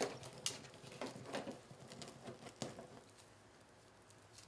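Polyester-polypropylene fabric mesh rustling softly as hands pinch and gather it into a ruffle, with a few light ticks and crinkles in the first three seconds, then quieter.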